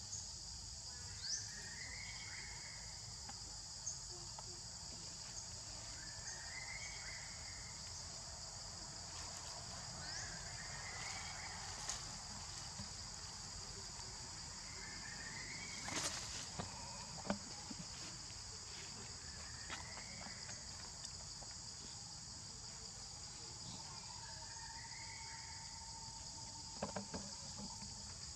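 Steady high-pitched chorus of insects, with a short call repeating about every four seconds over it and a few sharp clicks midway and near the end.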